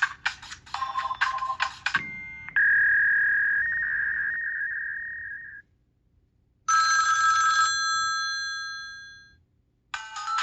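Ringtones from a T-Mobile HD2 phone's speaker, played in turn. A pulsing tone pattern ends about two seconds in, then a single held ringing tone lasts about three seconds. After a short gap comes a bright chime whose tones ring out and fade, and a new ringtone starts near the end.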